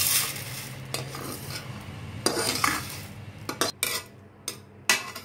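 Perforated metal ladle scraping dry roasted vermicelli out of a kadai onto a stainless steel plate, the strands rustling as they fall. Several sharp metal clinks of the ladle against the pans follow in the second half.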